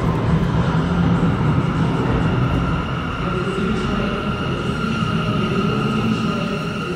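New York City Subway R179 train approaching along the express track: a steady rumble of wheels on rail with a high whine held over it, easing slightly after a few seconds.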